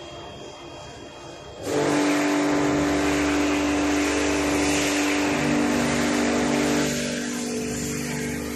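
Automatic wheelie-bin washing machine starting its wash cycle about two seconds in: a sudden loud hiss of water jets spraying the bin, over a steady pump motor hum. The hiss eases slightly near the end.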